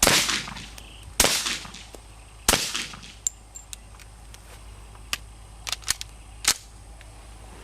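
Three suppressed .45 ACP shots from a SIG P220 pistol with a Silencerco Osprey suppressor, fired about a second and a quarter apart, each a sharp pop with a short ringing tail. Near the end come several fainter sharp cracks in quick succession.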